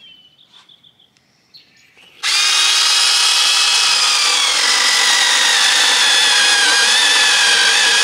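Seyvum CS-BM11 6-inch cordless mini chainsaw starting suddenly about two seconds in and running steadily with a high electric whine as its chain cuts into a branch. The pitch dips a little a couple of seconds after it starts, as the chain takes load in the wood.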